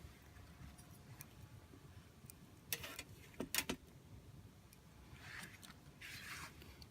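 Small wood fire in a compact folding fire stand crackling faintly, with a few sharp pops about three seconds in and two short hisses near the end.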